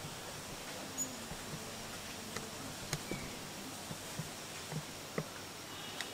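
Outdoor forest ambience: a steady even hiss with about eight soft clicks and taps scattered through it.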